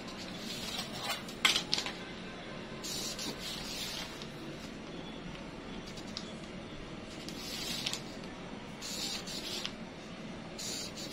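Marker pen drawn across pattern paper along a ruler in about four short scratchy strokes, with a few sharp clicks and taps of the rulers and tape measure being handled, the loudest about a second and a half in.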